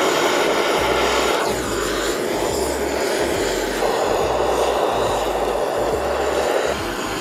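Handheld gas blowtorch hissing steadily, its flame played on lump charcoal in a grill to light it; the rush shifts a little in tone a couple of times.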